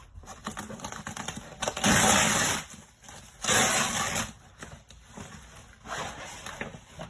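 Fabric of a portable photo light box tent being handled: two loud rasping rustles, each just under a second, with a fainter one near the end.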